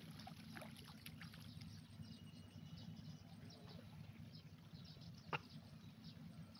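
Near silence: a faint low hum with scattered faint, short high chirps, and one sharp click about five seconds in.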